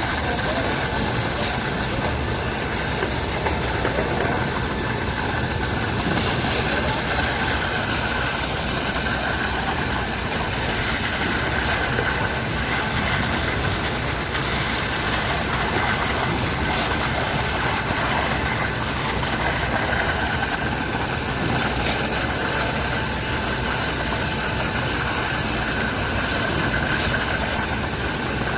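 Engine of the concrete pumping equipment running steadily at a constant speed, a continuous machine noise with no breaks.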